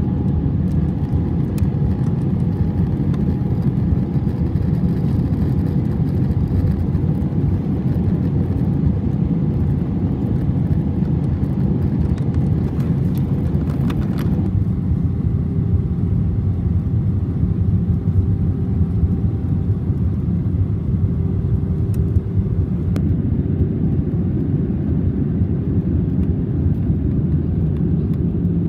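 Airliner cabin noise in flight: a steady, low rush of engines and airflow, with a faint steady hum above it that shifts in pitch about halfway through.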